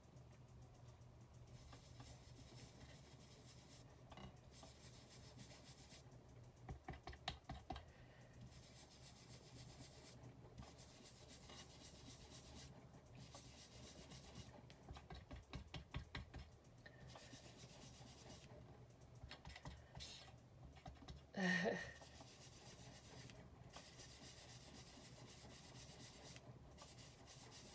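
Quiet handling of paper being pressed and rubbed by hand on a craft mat, over a faint steady hum. A sharp tap about twenty seconds in is the loudest sound, and a brief louder noise follows a second and a half later.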